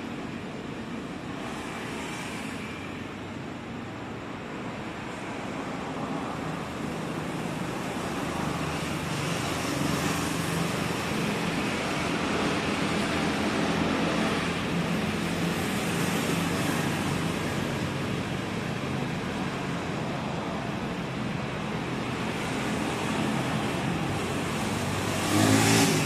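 Road traffic noise: a steady wash of passing vehicle engines and tyres that grows a little louder partway through. A closer vehicle swells up briefly near the end.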